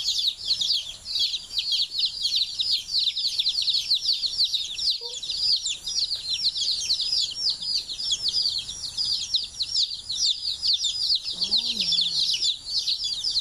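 A box of newly arrived baby chicks peeping without a break, many high, downward-sliding peeps overlapping.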